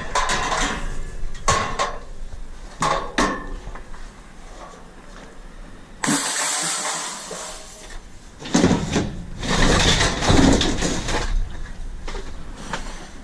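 Scrap metal and junk clattering and banging as it is handled and thrown about, in irregular bursts: a run of knocks at the start, a scraping stretch about six seconds in, then a louder cluster of crashes.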